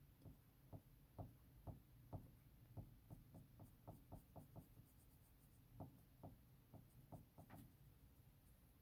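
Near silence with a run of faint, irregular small clicks or taps, coming quicker around the middle, with a short pause about five seconds in.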